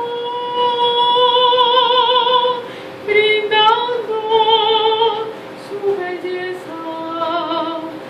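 A woman singing solo, unaccompanied, in long held notes with vibrato: two high sustained phrases, then a lower, softer one near the end.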